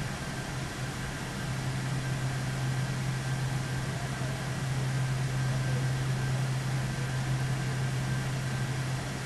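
Steady machine noise: a low hum over an even hiss, with a faint high whine.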